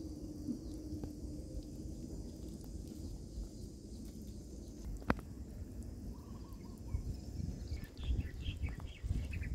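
Outdoor rural ambience with a low rumble throughout and one sharp click about halfway. Birds call in the second half, with a run of short calls near the end.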